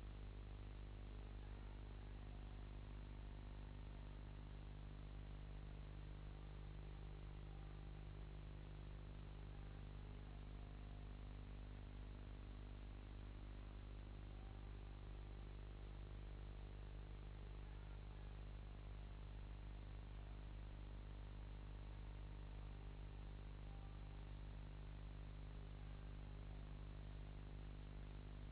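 Steady electrical hum and hiss with no other sound: the noise floor of a silent film's transfer.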